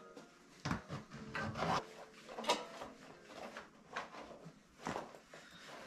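Irregular rubbing and light knocks from handling a mountain bike wheel, as its deflated tyre is worked off the rim by hand and a rag wipes the frame.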